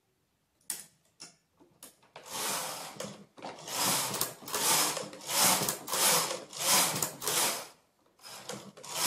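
Domestic knitting machine carriage pushed back and forth across the needle bed, a scraping slide on each pass, about one pass every 0.7 s, after a few clicks about a second in. These are quick rows knitted in contrasting waste yarn so the finished piece can be taken off the machine.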